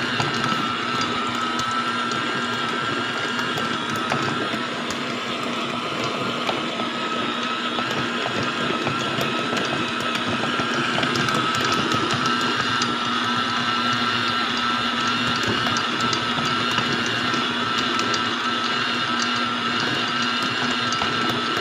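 Electric stand mixer running steadily, its motor giving a constant whine and hum as the attachment kneads bread dough in a steel bowl, with faint scattered ticks.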